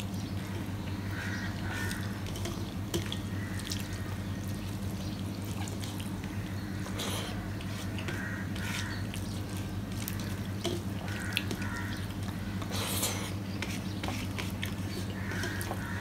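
Close-miked eating sounds of a man eating rice and fish curry with his fingers: wet chewing and lip-smacking with many small clicks and squelches, over a steady low hum.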